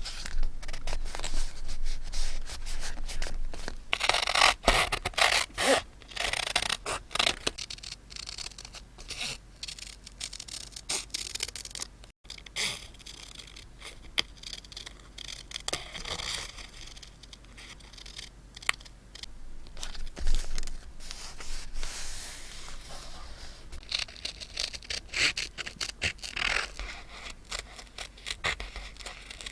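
Close-miked paper and stationery being handled: scraping, rubbing and crinkling of paper, with many small clicks and taps, in irregular bursts.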